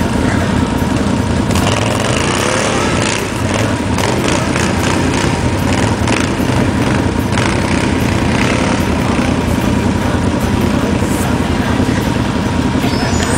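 Quad bike (ATV) engine running steadily as it drives through deep snow, with a constant rushing noise over it.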